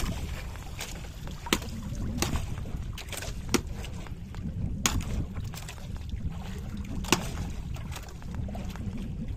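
Wind and water noise around a small fishing boat, with sharp knocks on the boat now and then.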